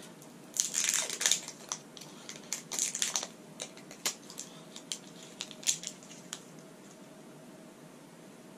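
Plastic shrink-wrap seal on a protein-shake bottle's cap crinkling and crackling as it is picked at and torn off, in bursts over the first few seconds, then a few scattered clicks.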